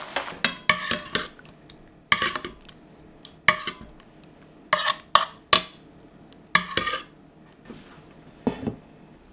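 A metal spoon scraping and clinking against a stainless steel sauté pan while spooning up a thick cream sauce, in about six short groups of clinks. Near the end comes one duller knock, a ceramic plate set down on a wooden table.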